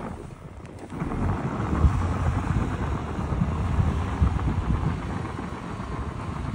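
Suzuki Jimny engine running hard with its wheels spinning in deep snow, the vehicle stuck, starting about a second in.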